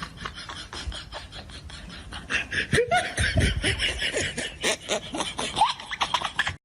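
People laughing in snickers and chuckles, growing louder about two seconds in.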